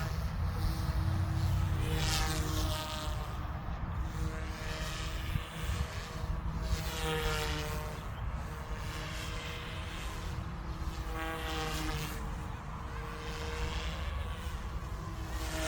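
Goosky S2 electric RC helicopter in flight: a steady rotor and motor whine that swells and sweeps up and down in pitch about four times as it moves past, over a constant low rumble.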